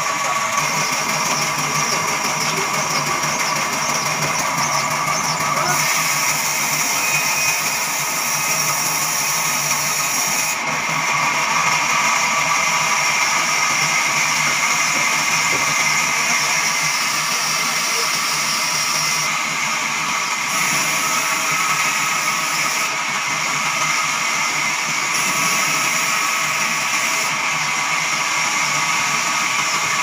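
Large sawmill band saw running and cutting through wood, a steady loud machine noise with a high whine over it. The sound shifts abruptly several times.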